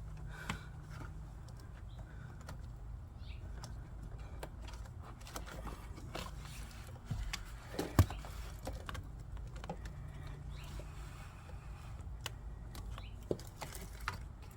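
Scattered small clicks and rustles of hands feeding a wire through car interior trim and handling plastic panels, with one sharper click about eight seconds in, over a steady low hum.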